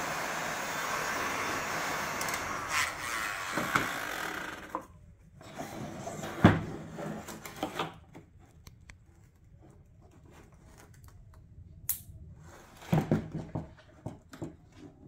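A heat gun blows as a steady hiss while warming the headlight's soft sealant, and is switched off about five seconds in. After that come scattered clicks and knocks of the headlight housing being handled, the loudest a sharp knock shortly after the blower stops and a quick cluster near the end.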